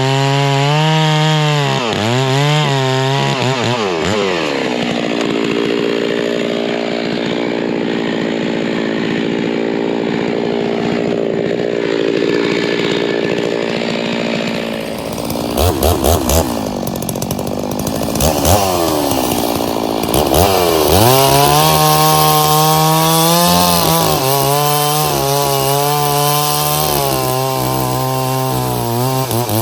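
Stihl chainsaw running hard while bucking firewood. Its engine pitch drops and holds lower for about ten seconds as the chain works through the wood. Near the middle the throttle blips up and down a few times, then the saw runs at high revs again.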